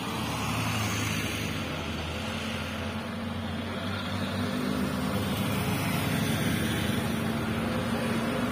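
Road traffic on a hill climb: cars and motorcycles passing, and a diesel truck's engine labouring up the grade, its steady drone growing louder toward the end as it approaches.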